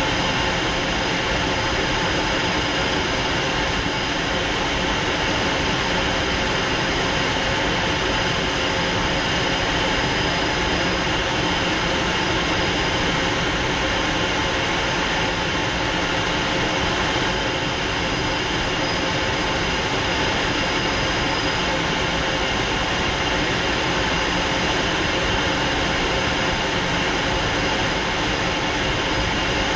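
Fouga Magister's twin Turbomeca Marboré turbojets heard from inside the cockpit in flight: a steady, even rush of jet noise with several faint steady whining tones over it.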